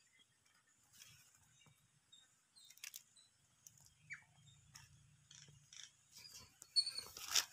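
Faint scattered clicks and soft rustles from a cat nosing at food on bare dirt, close to the microphone. About seven seconds in, a louder burst of rustling and scraping comes as the handheld camera is moved.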